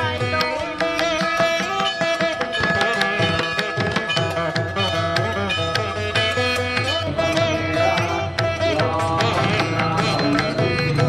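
Background instrumental music in an Indian classical style, with plucked strings and hand-drum strokes, playing continuously.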